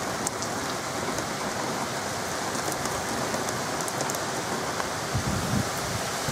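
Heavy rain pouring steadily onto a street and trees during a storm. About five seconds in, low rumbles of wind begin hitting the microphone.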